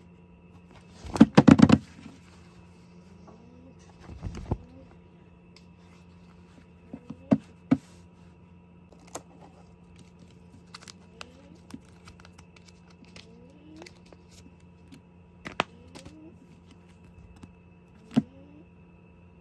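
Merchandise being handled on a desk: a burst of rapid crinkling about a second in, a shorter one around four seconds, then scattered light clicks and taps from the fabric poster and the photocard's plastic sleeve. Under it are a low steady hum and a faint rising chirp that repeats every two seconds or so.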